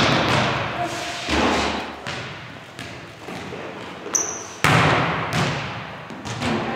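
Volleyballs being spiked and bouncing on a hardwood gym floor: sharp smacks that echo through the large hall, the loudest at the start and about four and a half seconds in, with a brief high squeak just after four seconds.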